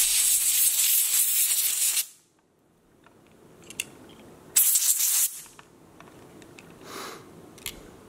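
Canned compressed air hissing through its straw nozzle into the optical chamber of a photoelectric smoke alarm, blowing out the spider webbing that was breaking the light path: a two-second blast at the start, a shorter blast about halfway through, and a faint puff near the end, with a few small handling clicks between.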